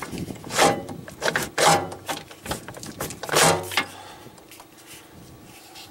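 Fifth-wheel landing-jack gearbox being tugged and worked on its shaft: about four short scraping clunks in the first few seconds as it sticks, caught on a small burr. Quieter near the end.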